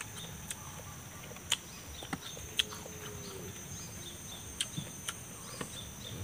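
Outdoor ambience: a steady high-pitched insect drone, with a handful of short sharp ticks scattered through it.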